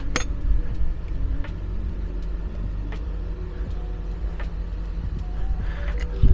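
Steady low rumble with faint metallic clicks about every one and a half seconds from a spanner working a rear shock absorber's nut, and a sharper knock near the end.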